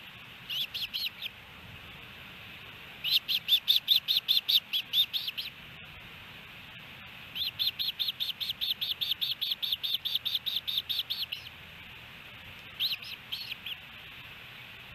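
Osprey calling in runs of quick, high chirps, about five a second. A short run comes at the start, longer runs follow around three and seven seconds in, and short bursts come near the end.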